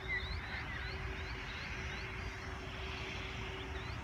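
Birds chirping, short repeated calls two or three times a second with a few lower chirps mixed in, over a steady low rumble.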